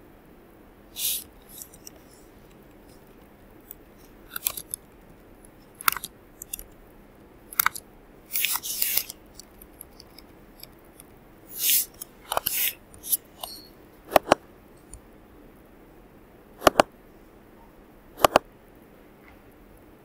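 Computer keyboard keystrokes and mouse clicks: short irregular runs of key taps and several single sharp clicks.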